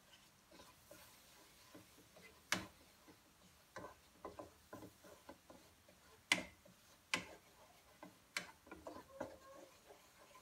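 Wooden spatula knocking and scraping against a nonstick pan while stirring flour into melted butter for a roux: irregular light clicks with four sharper knocks.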